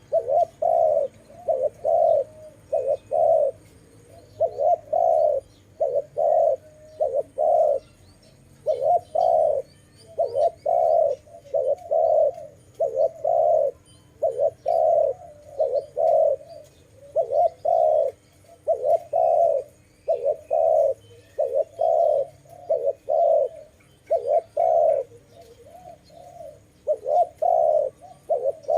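Spotted dove cooing over and over: short low coos in groups of two to four, with brief gaps between the groups.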